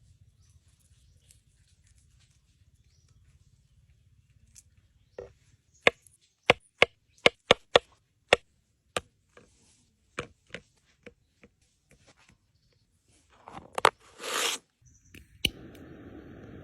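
A run of sharp knocks like chopping or tapping, about two a second, thinning out after a few seconds. They are followed by a short rushing burst near the end, then a steady hiss.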